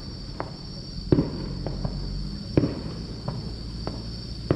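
Aerial firework shells bursting: three loud bangs about a second and a half apart, with fainter pops between them. Under them runs the steady high chirring of insects.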